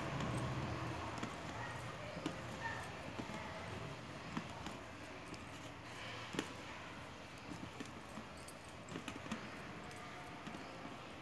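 Faint, irregular taps and clicks of jaggery being mashed into a powder of roasted carom seeds and black pepper by hand in a bowl, with one sharper knock about six seconds in.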